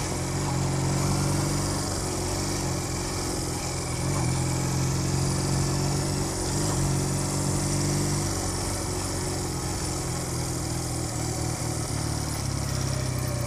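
Cruiser motorcycle engine running at low speed as the bike rolls slowly, the engine note rising and easing gently a few times.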